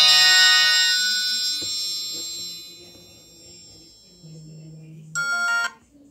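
A Nokia 100 mobile phone's ringtone playing through its small loudspeaker, its bright electronic notes dying away over the first two seconds or so. About four seconds in comes a low steady hum lasting about a second, then a short bright chime of a few tones just before the end.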